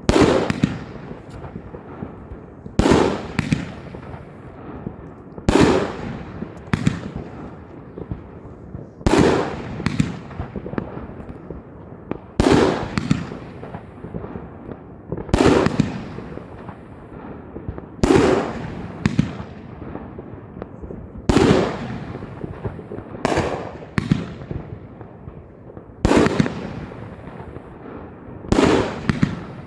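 Klasek F2/F3 firework batteries fired as a compound show: loud bangs about every three seconds, each dying away over a second or so, some followed closely by a smaller second bang.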